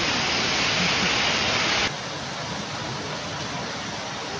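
Dense, steady hiss of a heavy hailstorm pelting a street. It cuts off abruptly about two seconds in, and a quieter steady noise of heavy rain and floodwater follows.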